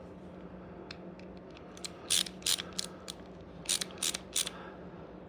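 Sharp metallic clicks and snaps, about seven in irregular groups, from hand tools working on a small engine's fuel pump fittings. A steady low hum runs underneath.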